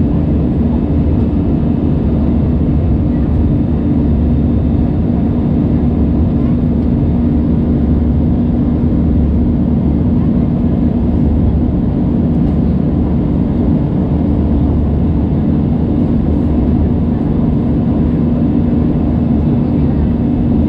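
Airbus A320 engines and rushing air heard inside the passenger cabin during the climb after takeoff: a loud, steady drone with a constant low hum running through it.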